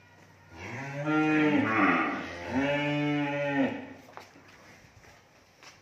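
Young cattle mooing: two moos back to back, together lasting about three seconds.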